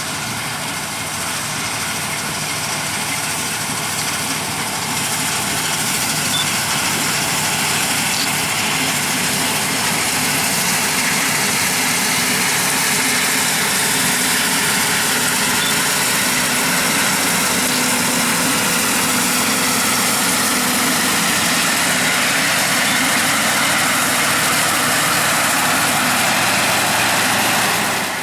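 Heavy diesel farm machinery running steadily, a dense machine whir with a low engine hum, growing a little louder over the first several seconds.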